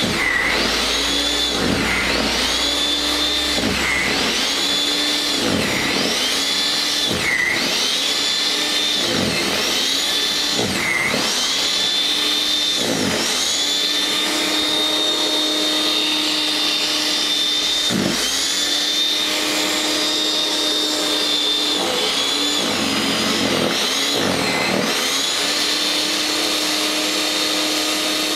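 WEN 5662 13.5-amp electric snow thrower running while it is pushed through heavy snow. Its motor whine dips in pitch and recovers about every two seconds, then holds steady for several seconds, then dips a few more times near the end.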